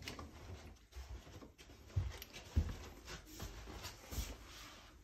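Handling noises from the plastic control-box enclosure and wiring of a mini-split indoor unit being refitted: scattered light clicks and rustles, with a few dull knocks about two seconds in, half a second later, and again near the end.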